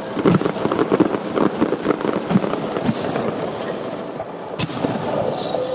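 Aerial fireworks going off: a rapid run of crackling pops and bangs for the first three seconds, thinning out, then a single sharp bang about four and a half seconds in.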